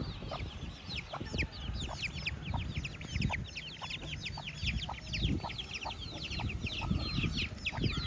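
A brood of Aseel chicks peeping nonstop, many quick falling cheeps overlapping one another.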